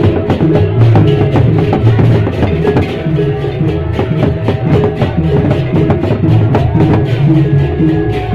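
Loud Sasak traditional kesenian ensemble music: rapid, dense drumming with many strokes a second over steady sustained tones.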